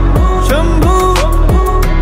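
Background music with a steady beat of deep kick drums that drop in pitch, under a gliding melody.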